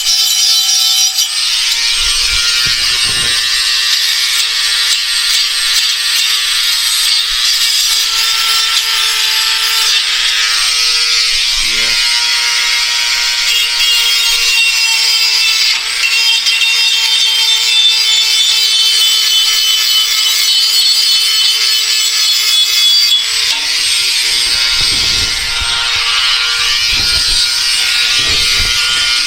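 Angle grinder grinding steel on a snowplow bracket, cleaning up the metal for welding: a steady, loud grinding hiss with a faint motor whine, and a few brief knocks as the work is handled.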